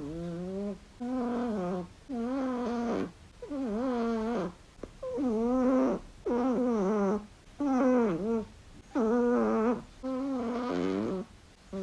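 Chihuahua snoring in its sleep: a pitched, fluttering snore on each breath, repeating evenly about once a second.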